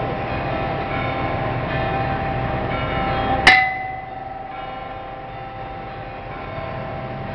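Boxing ring bell struck once, a sharp clang that rings and fades within about half a second, signalling the start of the round. It sounds over a steady din of the crowd, which drops after the bell.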